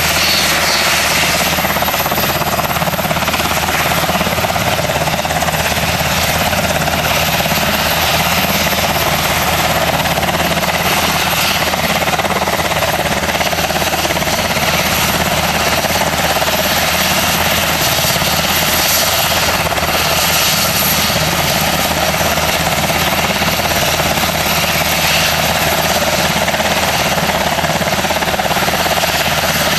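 UH-60 Black Hawk helicopter running on the ground, close by: its twin turboshaft engines and rotor make a loud, steady whine and rush that holds unchanged throughout.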